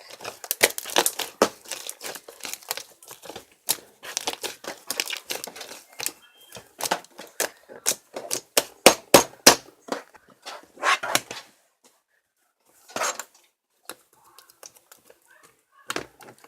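Rapid, irregular clicks, taps and crinkling, like small objects being handled, dense for most of the stretch, then dropping to a brief gap and a few scattered clicks near the end.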